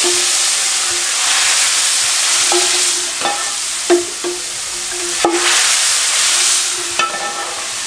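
Hot tempering oil with fried garlic and whole spices sizzling loudly as it is poured onto cooked red lentils in a pressure cooker, with a metal ladle clinking against the pots several times. A little past halfway, lentils ladled into the hot pan sizzle up again.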